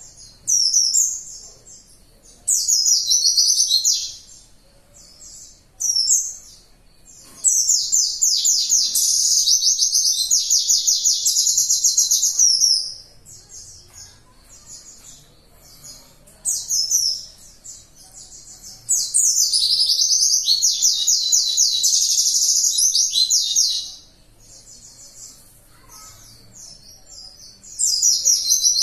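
A caged white-eye (pleci) singing its high, rapid, rattling burst song, the 'tembakan' that keepers prize, in repeated phrases. Two long bursts of about five seconds each come around eight and twenty seconds in, with shorter phrases between them.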